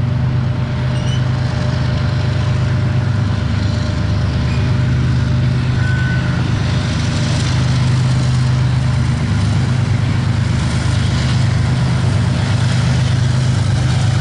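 Freight trains passing close by: a loaded coal train's cars rolling with a steady low diesel drone, getting a little louder as the diesel locomotives of a second freight train draw near.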